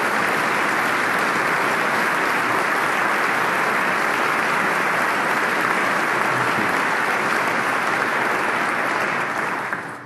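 Large audience applauding steadily, the clapping dying away near the end.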